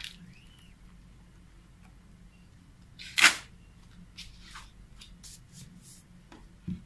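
Paper sheet handling on a screen-printing table. A single short, sharp swish about three seconds in as the printed sheet is pulled off the board, then light rustles and taps as a fresh sheet is laid against the registration tabs.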